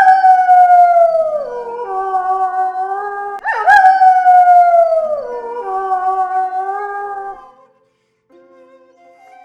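Wolves howling: two long howls about three and a half seconds apart, each rising sharply and then sliding slowly down in pitch, with other wolves' held notes overlapping. The howls fade out about seven and a half seconds in, and a new howl begins near the end.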